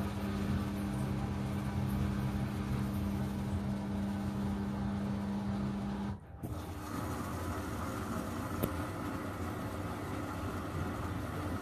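Candy CS 1292D3 front-loading washing machine running at the start of its main wash: a steady mechanical hum that breaks off abruptly about six seconds in, after which a more even machine noise continues, with one faint click later on.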